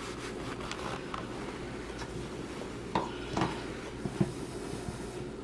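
A few light knocks and clicks from hands working the metal sink drain basket and its nut, over a steady low hum.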